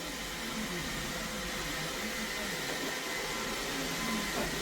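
iRobot Roomba robot vacuum running: a steady whirring hum with a faint high whine held over it.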